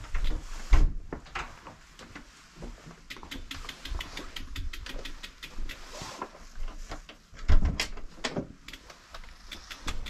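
Close handling noise: clothing rubbing against the camera, with a string of sharp clicks and knocks in the middle and a couple of heavy thumps.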